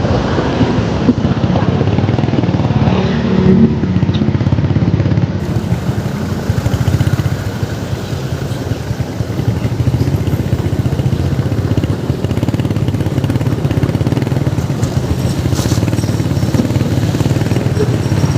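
Steady motor-vehicle engine noise at close range.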